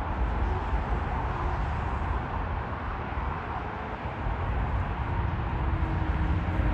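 Jet airliner engine noise, a steady rumble that grows louder in the last couple of seconds as a faint engine whine comes in.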